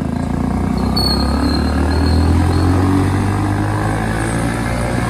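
Modified Hero Splendor's single-cylinder four-stroke engine running through a loud aftermarket RX-style silencer, a steady low drone that swells about two seconds in and eases off later.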